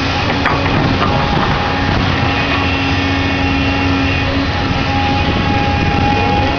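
Doosan DX235LCR excavator running steadily while working: a constant machine rumble with a few held tones over it.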